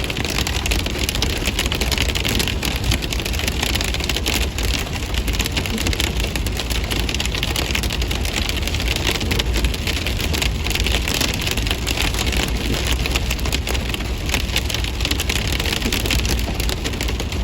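Hailstones rattling continuously against a vehicle in a dense, steady crackle of countless small hits, over the vehicle's steady low rumble.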